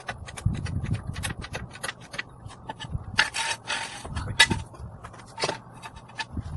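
Floor jack being set under the car and worked: irregular metallic clicks and knocks, with a longer scrape about three seconds in.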